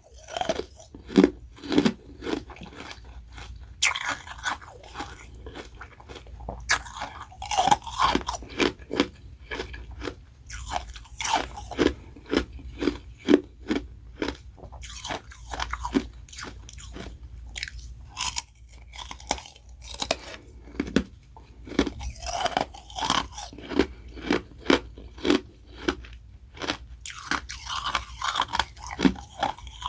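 Ice being bitten and chewed close to the microphone: carbonated ice rounds with refrozen freezer-frost shaved ice, crunching in a steady run of sharp crunches and chewing.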